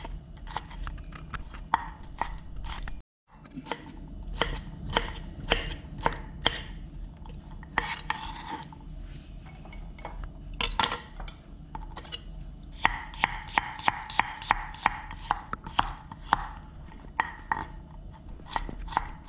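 Chef's knife chopping vegetables on a thick wooden chopping board. First come scattered cuts through red bell pepper strips, with a brief dropout about three seconds in. Near the end comes a steady run of quick chops through carrot, about three strokes a second.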